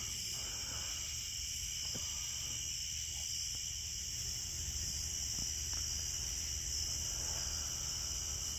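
Night insect chorus: a steady, high-pitched, unbroken trilling that holds without change, with a faint low rumble beneath and a couple of faint ticks.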